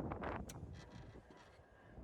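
Wind rumbling on the microphone, fading after about half a second, with one sharp click about half a second in.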